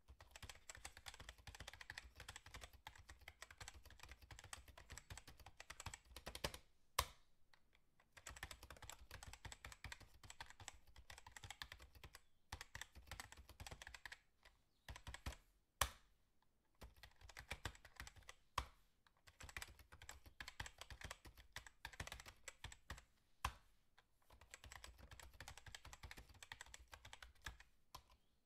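Wooden ice-cream sticks clicking and tapping as they are handled and shifted on a tabletop: dense runs of light clicks broken by short pauses, with a few sharper clacks.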